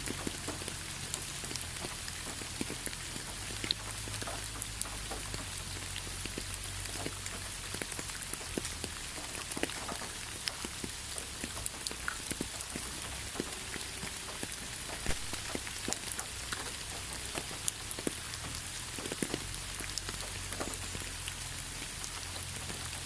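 Steady rain falling, an even hiss with many separate drops ticking and pattering on surfaces, over a low rumble.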